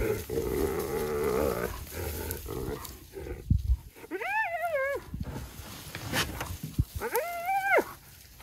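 Spotted hyena calling at African wild dogs over a carcass it is trying to steal. First comes a rough, dense burst of calls lasting about a second and a half, then two separate drawn-out calls, each just under a second, that rise and then fall in pitch, about three seconds apart, with a dull bump or two between them.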